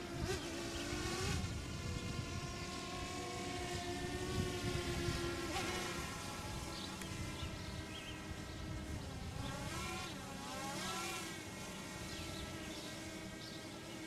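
Sentry 14V outdoor warning siren sounding the steady alert signal, one held multi-note tone, its pitch wobbling briefly about a second in and again around ten seconds in.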